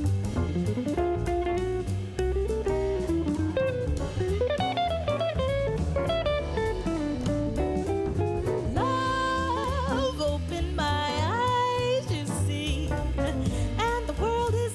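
Background music: a guitar-led song with a steady beat, with a voice singing from about halfway through.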